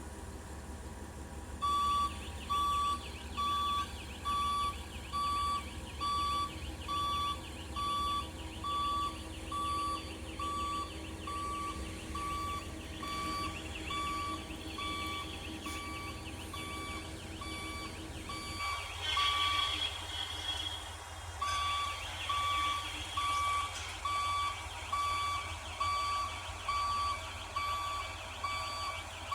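A heavy machine's warning beeper sounds about once a second over a steady low diesel engine rumble. About two-thirds of the way through the beeping stops for a couple of seconds, with a burst of mechanical noise, then starts again.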